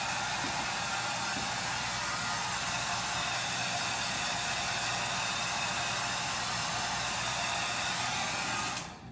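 Handheld hair dryer blowing steadily, then switched off just before the end.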